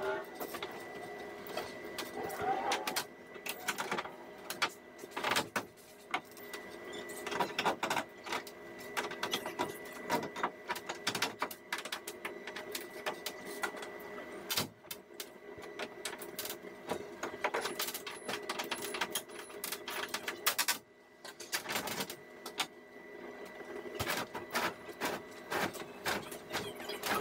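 Irregular knocks, taps and clatter from handling a fibreglass vanity module hung on a lifting strap, as it is worked into place and test-fitted. Under them runs a steady background hum.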